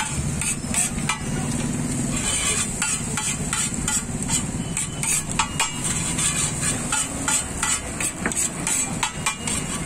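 Metal spatula tapping and scraping again and again on a hot griddle while egg sizzles, with a low steady rumble underneath.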